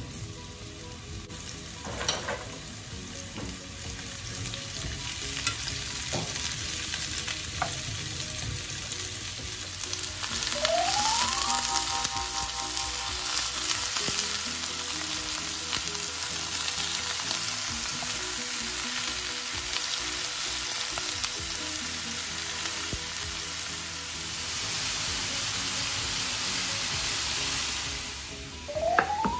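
Zucchini cubes sizzling as they fry in olive oil in a pan, with a spatula stirring. About ten seconds in the sizzle grows louder and stays so as minced meat fries with the zucchini. A short rising tone sounds about ten seconds in and again at the very end.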